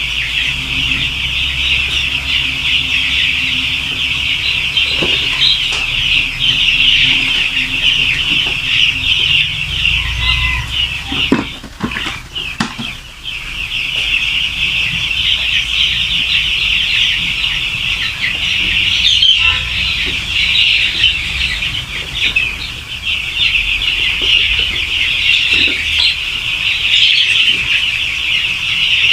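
A flock of five-day-old broiler chicks peeping continuously, many high calls overlapping into a steady chorus. A low hum runs underneath, and a few knocks sound about eleven to thirteen seconds in.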